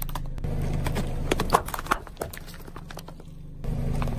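A car engine idles with a low, steady hum while its tyre crushes small plastic-wrapped items, giving scattered sharp cracks and crunches, the loudest about a second and a half in. The hum drops away in the middle and comes back abruptly near the end.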